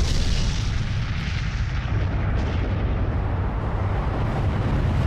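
Explosion, most likely an added sound effect: a continuous loud rumbling roar, heaviest in the low end, holding steady without letting up.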